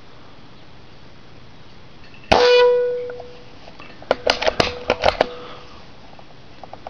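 A Benjamin Marauder .22 PCP air rifle fires a single shot about two seconds in, a sharp report followed by a ringing tone that dies away over about a second. A second or so later comes a quick run of about seven metallic clicks as the bolt is worked to load the next pellet.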